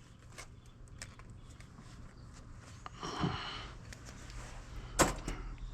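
Quiet handling of scrap wire and a wire-stripping tool: scattered small clicks, a short rushing noise about three seconds in, and a sharp click about five seconds in, over a faint steady hum.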